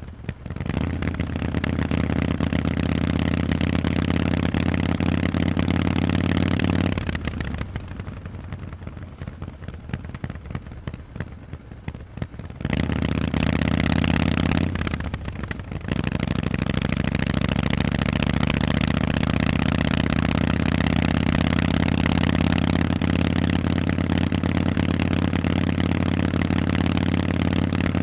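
Harley-Davidson Forty-Eight's air-cooled V-twin running through loud Vance & Hines exhausts while being ridden. It pulls under throttle, then drops to a quieter off-throttle note about seven seconds in. It pulls hard again about five seconds later, with a brief dip, then a long pull whose pitch slowly climbs.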